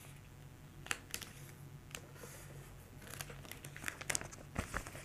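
Faint rustling and crinkling of a paper label and clear book-covering plastic being handled, with a few sharp ticks, the clearest about a second in.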